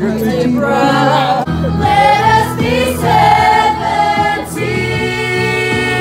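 A group of young voices singing together over recorded music, holding a long note near the end.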